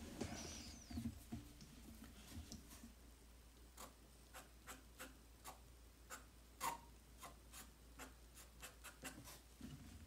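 Charcoal pencil working on drawing paper: faint scratchy strokes, then from about four seconds in a scatter of short sharp ticks as the pencil point strikes the paper.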